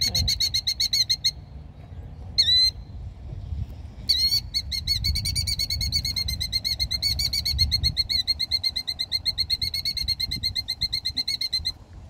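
Killdeer giving a rapid alarm trill of sharp, high, repeated notes, about eight a second. The trill breaks off after about a second, a short two-note call comes in the gap, and then the trill runs on steadily until near the end. It is the alarm of a parent killdeer guarding its egg on the nest.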